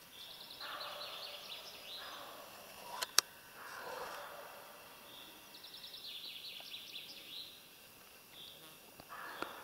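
Faint birdsong in woodland: a short, rapid trill, given twice about five seconds apart, over soft rustling, with a sharp click about three seconds in.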